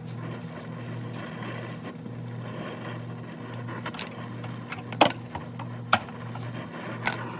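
Brazing torch burning with a steady hiss and low hum while copper refrigerant lines are joined to a refrigerator compressor with silver solder. A few sharp metallic clicks and taps come about four, five, six and seven seconds in.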